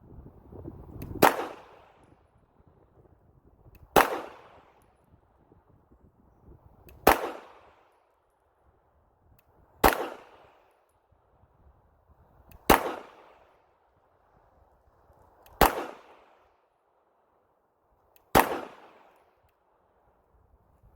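Gen 5 Glock 34 9mm pistol fired at slow fire: seven single shots, one about every three seconds, each a sharp crack with a short echoing tail.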